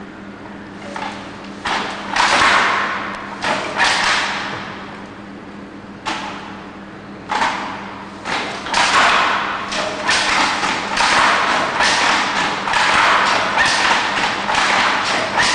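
Wooden handloom with a twin-cloth sley being worked by hand: the picking handle throws two shuttles at once and the sley beats up the weft, making repeated knocks and clacks. They are sparse at first, then settle into a steady weaving rhythm about halfway through.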